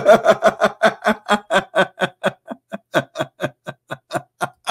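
A man laughing hard: a long run of quick, even 'ha' pulses, about five or six a second, growing fainter toward the end.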